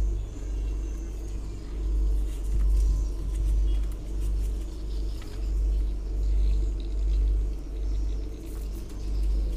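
Low, steady rumble of a passenger ship's machinery heard from inside the wheelhouse, swelling and fading about once a second.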